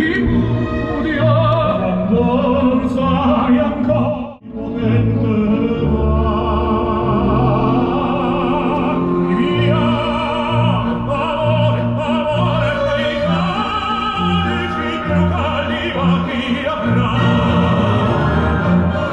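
Opera with a singing voice and orchestra, played loudly on the Volvo S90's Bowers & Wilkins car sound system, with a brief break about four seconds in.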